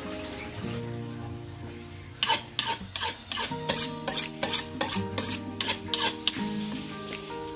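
A kitchen knife striking a cutting board in quick repeated strokes, about three a second, for several seconds, over background music.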